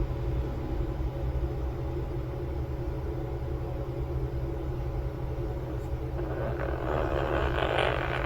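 Sleeping quaker parrot (monk parakeet) snoring: a raspy, breathy sound about six and a half seconds in, lasting under two seconds. A steady low hum runs underneath throughout.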